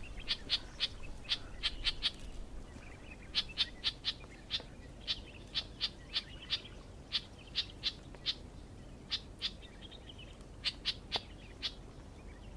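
Clamorous reed warbler calling: a long series of short, hard call notes, about three to four a second in runs broken by brief pauses.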